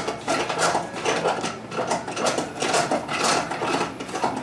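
Plastic pump-action Easter egg spinner being pushed up and down by hand to spin an egg, its mechanism sounding with each stroke in a quick, uneven rhythm.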